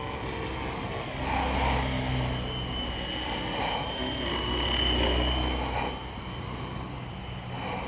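Funcopter electric RC helicopter in flight: a steady high motor whine over the whir of the rotor blades. It grows louder about a second in and eases off near six seconds.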